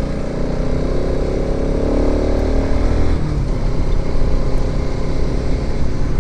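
Bajaj motorcycle engine running while riding, with an even engine note for about the first three seconds that then gives way to rushing road noise with a low hum.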